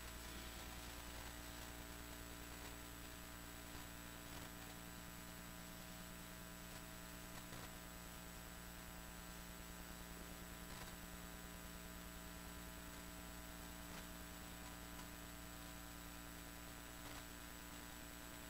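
Low, steady electrical mains hum made of several fixed tones, with a few faint ticks scattered through it.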